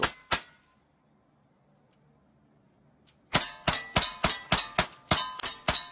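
Two revolver shots in quick succession, then a pause of about three seconds, then a rapid string of lever-action rifle shots, about four a second, with metallic clangs from the steel targets among them.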